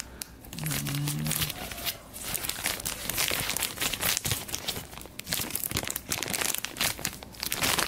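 Clear plastic bags holding plastic model-kit runners crinkling and rustling as they are handled, with irregular crackles throughout.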